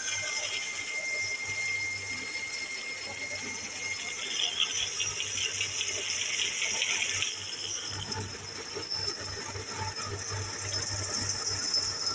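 Stationary power saw running with its blade cutting through a stained wooden board: a steady machine hum under the hiss of the blade in the wood, turning harsher for a few seconds in the middle.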